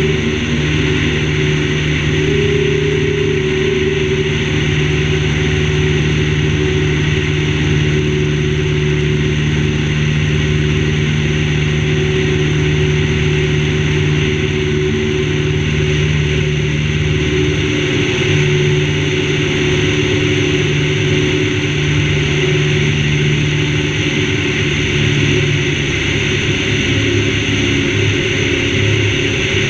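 Citabria 7ECA's four-cylinder Lycoming engine and propeller running steadily in flight, heard from outside the cabin with a steady rush of air. The deepest part of the engine tone thins out about 18 seconds in.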